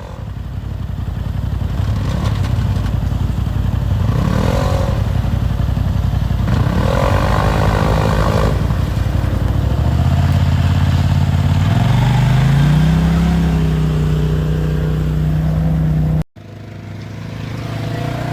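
Off-road side-by-side engine running under load, with some clatter and scraping. About two-thirds of the way through the revs climb and hold at a higher pitch. Near the end the sound cuts off abruptly, then an engine comes back in.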